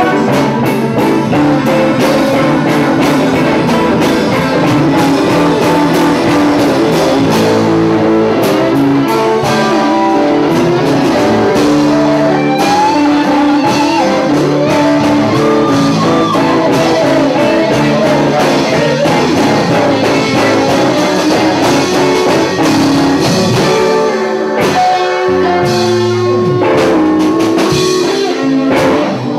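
Live blues band playing a slow blues, a guitar leading with notes that bend up and down over bass and drums.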